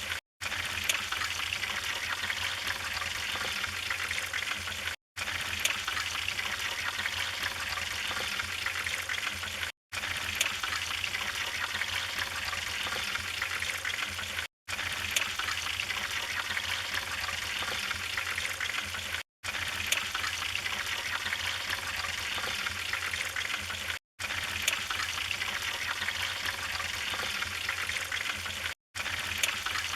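Wood fire burning, a steady hiss with scattered sharp crackles and pops. The sound drops out to silence for a moment about every five seconds.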